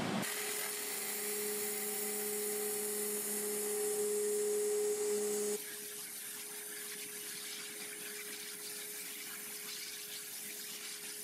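Waterjet cutter cutting metal plate: the high-pressure jet hisses steadily over a steady pump tone. The level drops and then stays even about five and a half seconds in.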